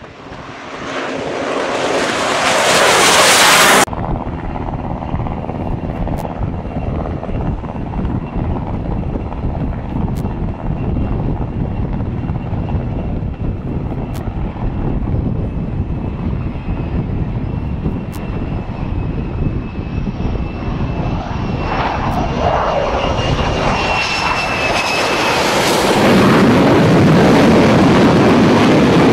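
F-35C jet engine noise. A jet flying low overhead grows loud, then is cut off abruptly about four seconds in. A steadier rumble with a thin high whine follows, and a jet grows loud again in the last several seconds.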